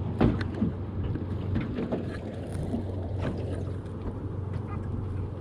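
A boat's engine running steadily with a low hum, under wind and water noise, with a few faint knocks.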